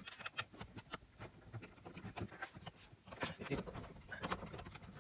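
Irregular small clicks, taps and rustling from hands working among the plastic dashboard parts around the instrument cluster, with a few sharper knocks about three and a half seconds in.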